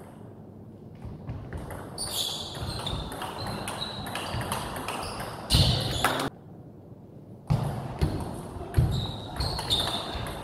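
Table tennis rally in a large hall: sharp knocks of the ball off bats and table, thin squeaks, and spectators' voices. The sound cuts off suddenly about six seconds in and starts again a second later with more knocks.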